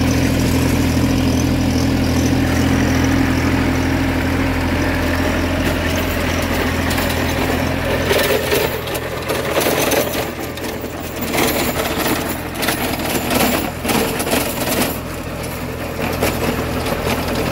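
Farmtrac Atom 26 mini tractor's Mitsubishi diesel engine running hard under heavy load. It drives a Shaktiman 20-blade gear-drive rotary tiller through dense, mature sunn hemp in low first gear at 540 PTO rpm, and the load pulls the engine down from its 1800 rpm setting to about 1600. The engine note is steady at first; from about eight seconds in it is mixed with the tiller's rough churning and irregular knocks.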